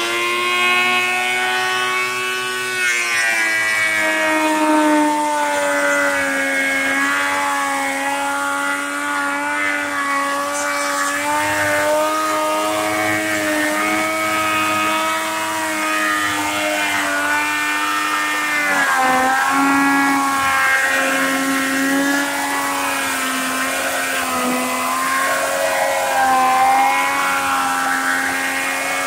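Ridgid 13-inch benchtop thickness planer running steadily, planing old weathered boards, with a high motor whine. Its pitch dips a little about three seconds in and again near nineteen seconds.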